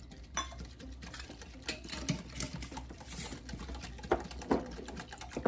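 Wire whisk beating pudding mix into milk in a glass bowl: a fast, steady rattle of the wires against the glass, with a few louder clinks about four seconds in.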